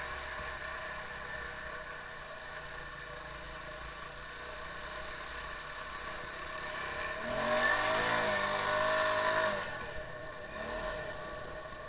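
Quad bike (ATV) engine running steadily while riding on a muddy track. About seven seconds in it revs up, is held higher and louder for about two seconds, then eases back.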